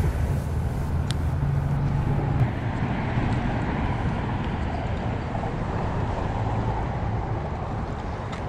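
A steady low engine drone with a hiss of wind and water over it, and a single short knock about two and a half seconds in.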